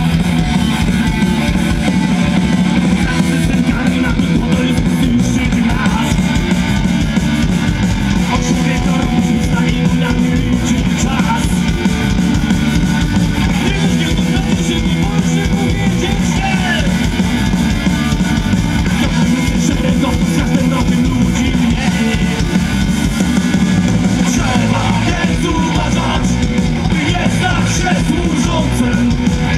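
Live punk rock band playing loudly and without a break: distorted electric guitars and bass over drums.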